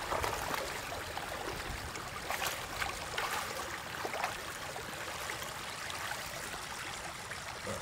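Shallow water running and trickling over rocks into a pool, with a few small splashes about two to four seconds in.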